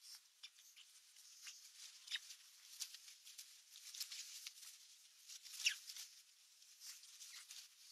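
Faint, thin, high-pitched squeaks and short chirps of raptor nestlings, several sliding down in pitch, the loudest a little past halfway, among light clicks.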